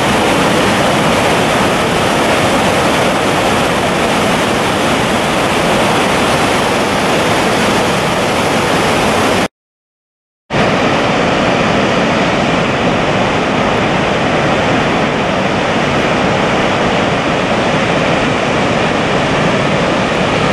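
Dettifoss waterfall: a loud, steady rush of a large volume of falling water. The sound drops out completely for about a second midway, at a cut between shots.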